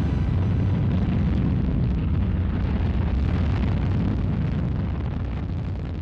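Space Shuttle rocket launch: the deep, crackling roar of the solid rocket boosters and main engines during ascent, holding steady and then beginning to fade near the end.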